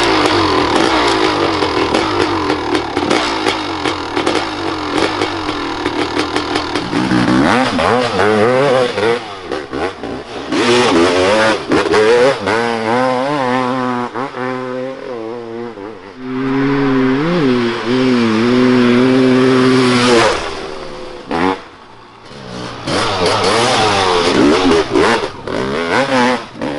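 Dirt bike engines revving hard. The engine holds high revs for the first several seconds, then rises and falls over and over with the throttle, easing off briefly about twenty seconds in before revving up again.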